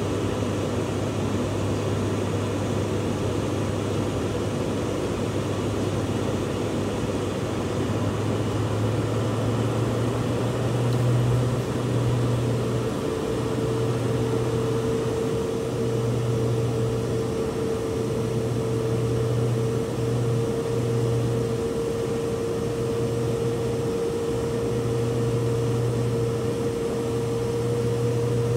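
Steady drone of a Fokker 50's twin turboprop engines and propellers heard from the cockpit, a low hum that wavers and swells. About twelve seconds in, a steady higher tone joins it.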